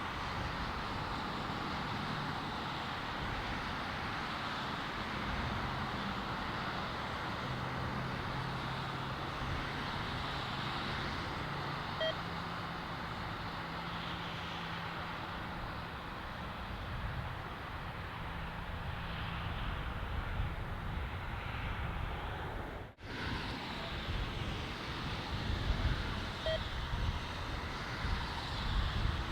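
Jet airliner engine noise, a steady distant rumble with wind noise. It breaks off abruptly for an instant about two-thirds of the way through and comes back gustier.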